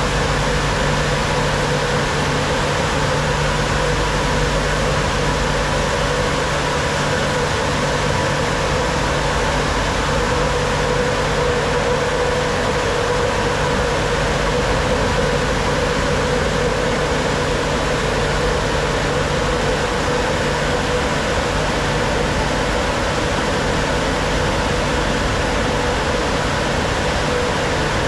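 Automatic tunnel car wash machinery running: a steady rushing noise with a faint, even hum underneath that does not change.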